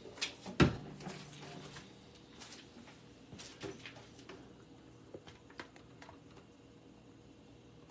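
Handling noise from a camera being adjusted on its mount: a sharp knock about half a second in with a brief low ring after it, then scattered faint taps and clicks.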